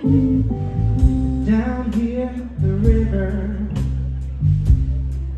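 Live blues band playing a slow song: electric guitar over electric bass and drums, with regular cymbal hits. The bass and drums come in fully right at the start, after solo guitar.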